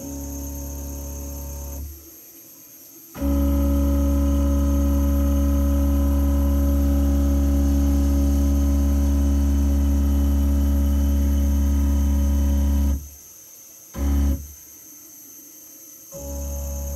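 Stepper motors of a CNC router jogging the gantry and spindle carriage: a steady droning hum with several fixed tones, switching on and off with each move. A short move at the start, a long one of about ten seconds, then two brief moves near the end.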